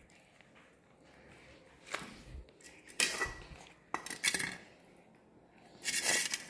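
Cutlery clinking and scraping against a dish, in a few short clatters about two, three, four and six seconds in, the last one the longest.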